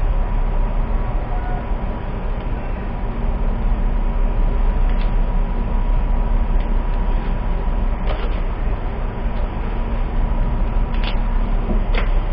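Steady, loud low rumble of background noise with a thin steady whine through it, and a few light clicks scattered through the second half, from a plastic charger and cable being handled.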